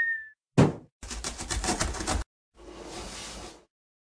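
Cartoon intro sound effects: a single thump, then about a second of fast rattling, then a short whoosh.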